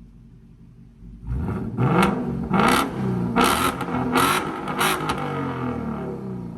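2021 Ford Mustang Mach 1's 5.0 L Coyote V8 through a freshly installed Borla ATAK cat-back exhaust, idling, then revved in five quick blips starting about a second in, each about a second apart, before settling back to idle.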